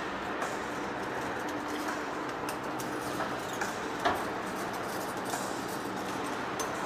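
Heavy lathe running with a huge forged steel shaft turning in it: a steady mechanical hum and rumble with scattered light clicks and knocks, one sharper knock about four seconds in.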